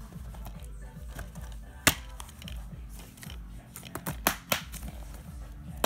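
Plastic DVD cases being handled, giving sharp clicks and knocks: one about two seconds in and a quick cluster of three or four near the end, over a low steady hum.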